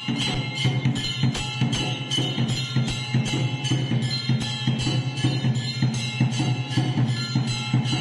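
Background music with a steady percussive beat and bell-like tones.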